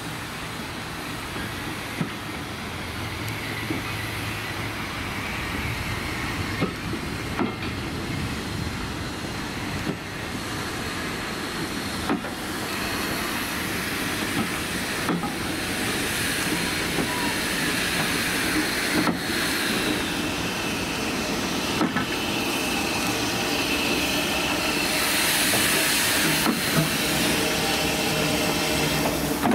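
Vintage railway coaches rolling slowly past on jointed track, wheels clicking over the rail joints every few seconds, while steam hiss from a Manning Wardle L Class saddle tank locomotive grows louder as the engine comes level near the end.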